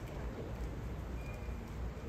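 Steady low rumble of open-air ballpark background noise, with no crack of a bat or pop of a mitt.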